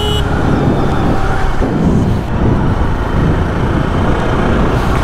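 Jawa motorcycle riding at a steady road speed, its engine running under heavy, steady wind and road noise on the handlebar-mounted microphone.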